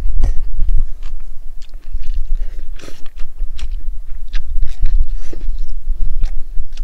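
Close-miked chewing of a mouthful of cold spicy noodles, with many short, sharp mouth clicks scattered through it.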